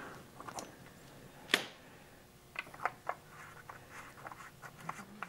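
Scattered light metallic clicks and taps from a torque wrench being worked on the 36 mm cap nut of a plastic oil filter housing, with one sharper click about a second and a half in.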